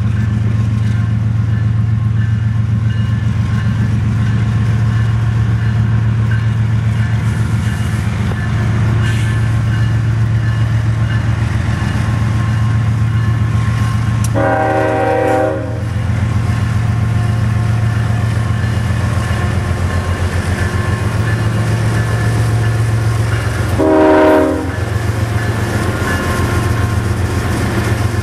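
CSX diesel freight locomotives approaching with a steady low engine rumble. The lead locomotive's air horn sounds twice, a longer blast about halfway through and a shorter one about ten seconds later.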